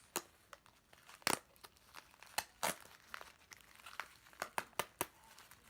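Plastic grocery bags crinkling and sticky tape being pulled and torn as the bags are taped together: irregular sharp crackles.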